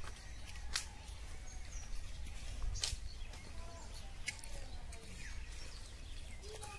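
Rural outdoor ambience: birds chirping here and there over a steady low wind rumble on the microphone, with a few sharp clicks or knocks.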